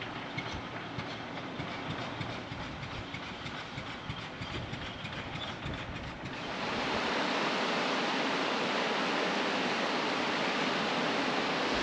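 Vehicle driving on a gravel road, heard from inside the cab: a rumble with the crackle of gravel under the tyres. About six seconds in it gives way to a louder, steady rushing noise.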